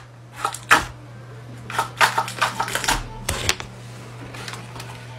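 Stiff paper being handled: short clusters of crisp clicks and rustles, over a steady low hum.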